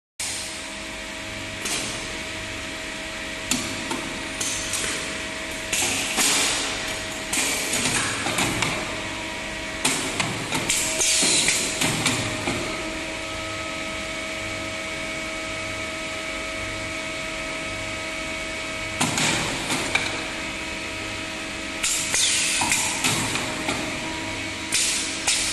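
CNC wire bending machine with automatic loader running: a steady motor hum under repeated clusters of sharp metallic knocks and clatter, a few seconds apart, as wire is fed and bent.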